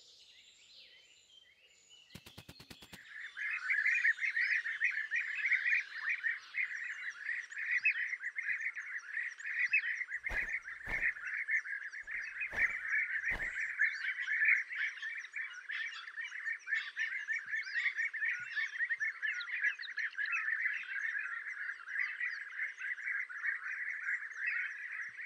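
Many European bee-eaters calling together at a nesting colony: a dense, continuous chatter of short rolling calls that starts about three seconds in. A few sharp knocks sound around the middle.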